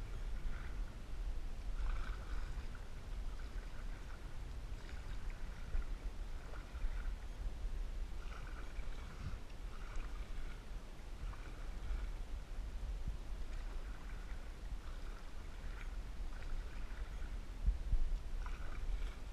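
Canoe paddle strokes in lake water: short trickling, gurgling splashes at uneven intervals of about a second, over a steady low rumble.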